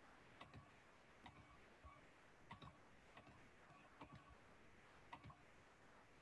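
Faint clicks at irregular spacing, about two a second and often in close pairs, over near silence.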